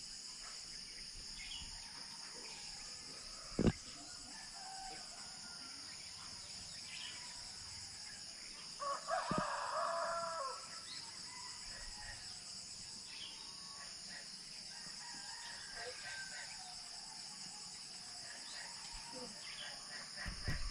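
Rooster crowing once, about nine seconds in, over a steady high-pitched drone of insects and scattered faint bird calls. A single sharp knock comes a few seconds in.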